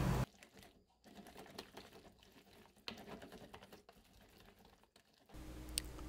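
Faint, irregular clicking and tapping of a whisk stirring thick batter in a plastic measuring cup. Near the end it cuts to a steady low background hum.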